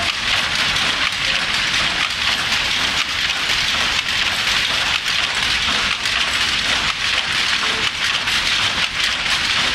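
Power loom running at speed: a loud, continuous, dense clatter of rapid rattling and clicking, with no let-up.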